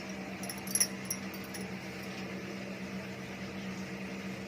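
A few light knife taps and clicks about a second in as small lemons are cut, over a steady low hum like a running fan.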